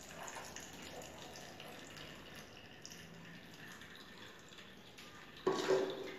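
Blended pitanga juice trickling and dripping through a plastic strainer into a plastic jug, faint and steady. Near the end, a short clunk as the glass blender jar is set down on the counter.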